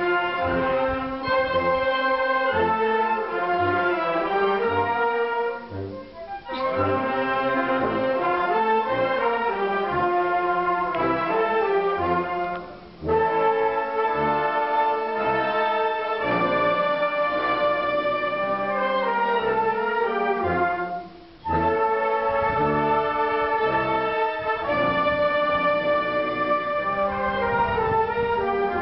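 Wind band, clarinets and brass, playing a piece live, with three short breaks between phrases.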